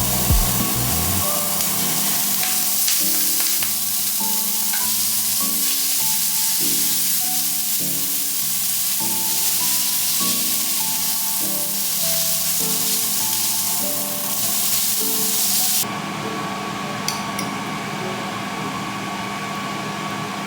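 Food sizzling in a frying pan, a steady hiss that drops away suddenly about three-quarters of the way through, under melodic background music.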